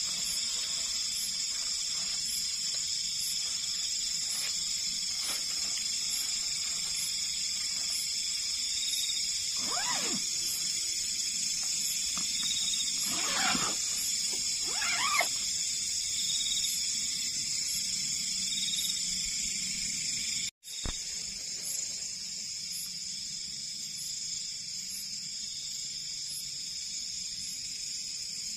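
Steady, high-pitched chirring of night insects such as crickets, with a few brief rustles near the middle.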